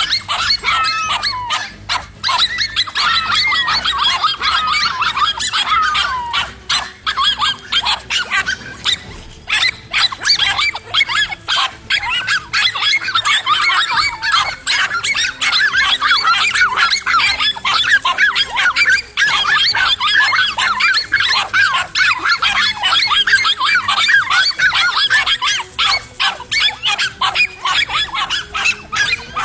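Several dogs barking and yapping at once in rapid, overlapping, high-pitched barks, with a few whining glides in the first seconds. This is the excited barking of a pack attacking a lizard.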